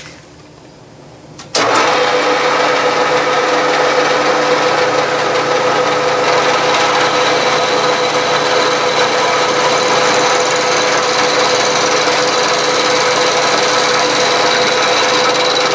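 Bridgeport milling machine cutting metal with a 3/4-inch end mill: starts suddenly about a second and a half in, then a steady whine over a continuous cutting noise.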